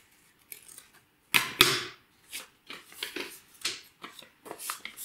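Paper rustling and scissors snipping as a folded sheet of green paper is cut into a leaf shape. The loudest rustle, with a sharp click in it, comes about a second and a half in, followed by several shorter crisp ones.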